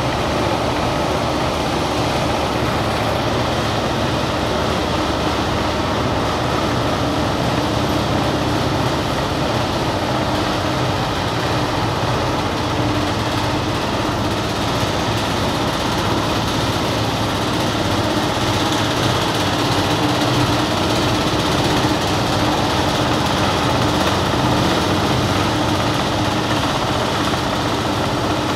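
Platina cotton gin running steadily, its electric motor and belt-driven rollers making a continuous mechanical drone as the machine gins cotton.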